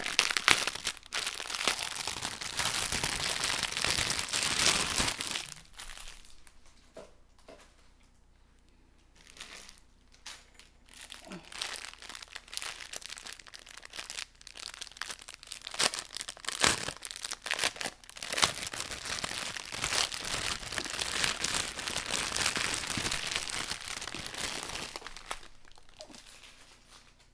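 Plastic bags of diamond-painting drills crinkling as they are handled and laid out. The crinkling comes in two long stretches with a quieter pause of a few seconds between them.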